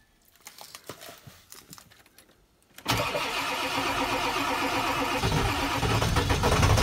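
A 1995 Ford F-250's 7.3 L Powerstroke turbodiesel V8, cold-started at about 30 degrees without the block heater plugged in. After a few faint clicks it starts suddenly about three seconds in and keeps running loudly, heard from inside the cab, with a deeper rumble building toward the end.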